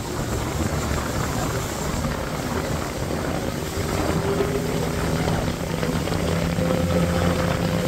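Small fishing boat's engine running steadily at cruising speed, a constant drone mixed with rushing wind and water noise.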